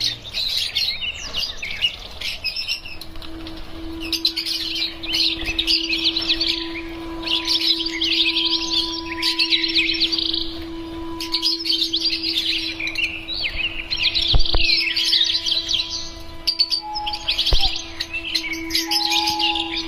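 A flock of lovebirds chattering in rapid, shrill chirps that come in dense bursts, with a steady faint tone underneath and a couple of brief knocks.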